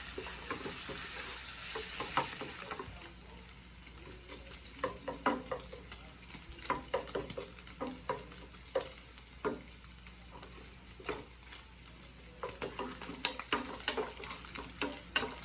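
Bacon sizzling in a frying pan, louder for the first few seconds, with frequent short clicks and scrapes of a utensil stirring and turning it in the pan.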